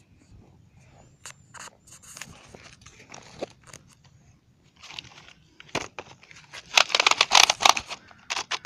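Hands digging through sandy, gritty soil: sand and grit crunching and scraping around a buried plastic toy blaster as it is worked free. The scraping grows loudest and densest about seven seconds in, as the blaster is pulled out of the ground.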